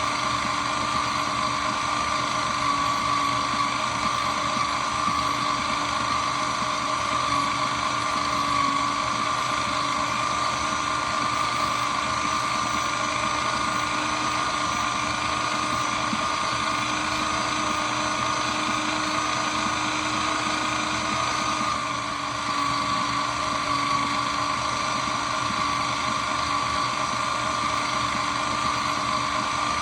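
Shredder machine running steadily with a constant whine. The level dips briefly about two-thirds of the way through.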